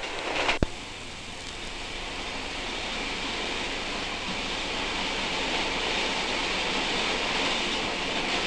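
A sharp click about half a second in, then a steady rushing noise that slowly grows louder.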